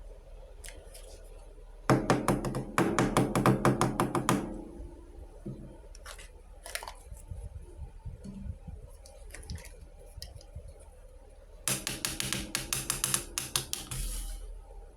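Small plastic toy kitchen pieces clicking and rattling in two quick bursts, one about two seconds in and one near the end, with a few single taps between them.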